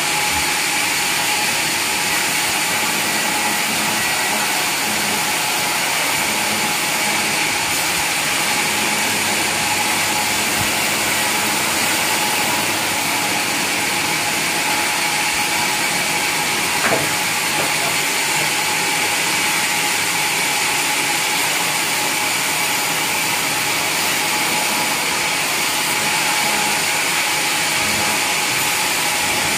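Sawmill machinery running steadily, a loud even mechanical noise with a constant whine, with one brief knock just past the middle.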